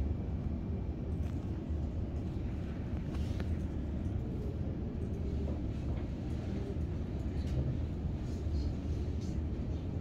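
Steady low rumble of room background noise, with a few faint clicks.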